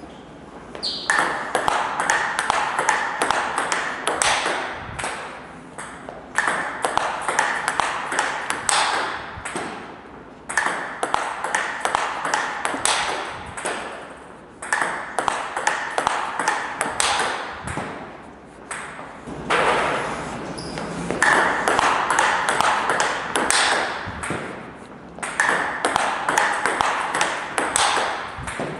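Table tennis rallies: a celluloid ball clicking rapidly off rubber-faced bats and the table, short blocks answered by forehand smashes. The clicks come in bursts of a few seconds with short pauses between, about six rallies in all.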